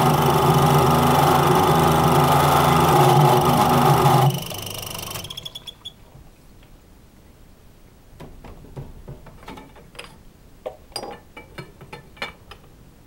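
Metal-cutting circular saw running as it cuts an aluminium tube. It is switched off about four seconds in and its whine dies away. After that come scattered light clicks and knocks as the tube is shifted in the saw's vise.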